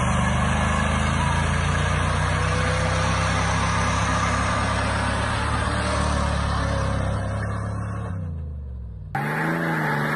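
Pickup truck doing a burnout: the engine is held at steady high revs while the rear tyre spins on pavement, with a loud hiss of tyre noise over it, and the revs fall away about eight seconds in. Near the end it cuts to another truck's engine revving.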